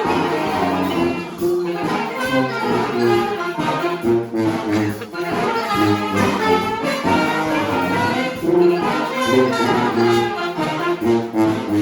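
A brass band playing live, the horns sounding over a low, pulsing bass line.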